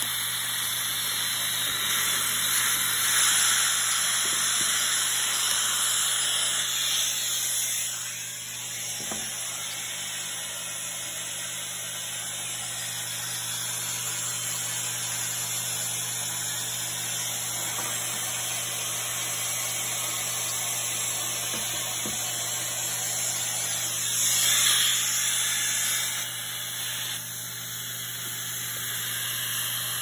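Cordless drill boring a connector hole through a clamped drilling jig for about the first seven seconds, over the steady hiss and hum of a dust extractor pulling through the jig's hose, which runs on alone after the drill stops.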